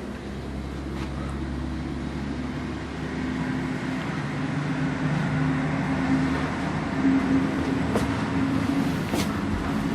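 Road traffic from a highway outside the house: a motor vehicle's engine hum that grows gradually louder, with a few faint clicks.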